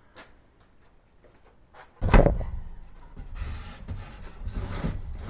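A heavy thump about two seconds in, then rattling and scraping as metal parts are handled on a workbench.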